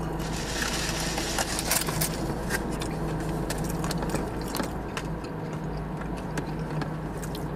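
Steady low hum inside a car's cabin, with scattered small clicks and crinkles of food being handled and chewed, and a brief louder rustle a couple of seconds in.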